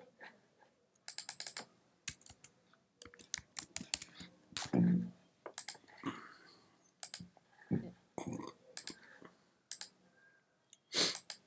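Typing on a computer keyboard in short bursts of quick keystrokes, with mouse clicks in between.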